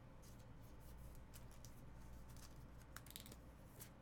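Faint small clicks and plastic rustles of a trading card being slipped into a soft penny sleeve and a rigid plastic top loader, over a low steady hum.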